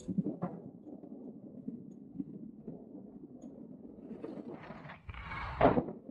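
Wind and road noise on a moving motorcycle, low and steady, with a louder rushing surge about five seconds in that fades again before the end.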